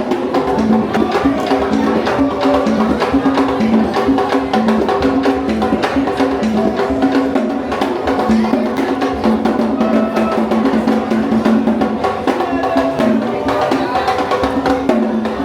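Upbeat music driven by fast percussion, with quick wood-block clicks and drums over a repeating line of pitched notes.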